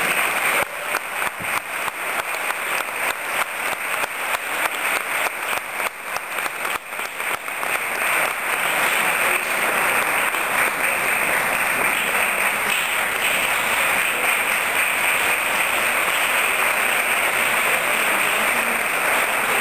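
Audience applauding: separate claps at first, merging about eight seconds in into dense, steady applause.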